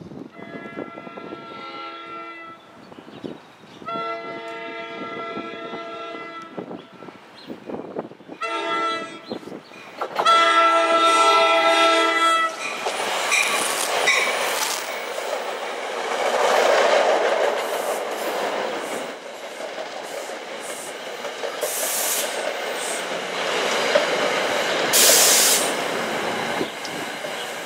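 NJ Transit commuter train's horn sounding the grade-crossing signal of two long blasts, one short and one long, then the train passing close by with steady wheel-on-rail rumble and clicking over the rail joints. Two brief high-pitched bursts rise above it near the end.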